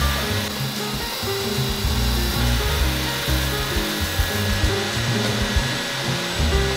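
A horizontal disc sander's spinning sanding pad running with a small round wooden piece pressed flat on it, a steady hiss of wood being rubbed down. Background music with a bass line plays over it.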